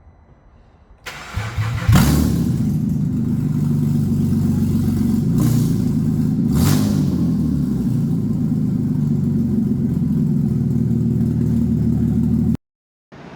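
Holden VZ Commodore's freshly installed replacement engine cranking over on the starter for about a second, catching, and settling into a steady idle: its first start after the engine swap. Two short sharp noises come a few seconds in, and the sound cuts off suddenly near the end.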